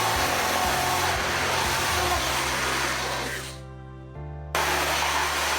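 Cordless drill with a conical step bit cutting through the metal wall of a pot, a steady grinding whine. It trails off a little after three seconds, stops for about a second, then starts again abruptly.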